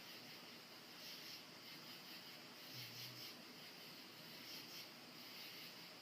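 Sleeping Boston terrier snoring softly, its breathing a faint rhythmic hiss, with one short low snore about three seconds in.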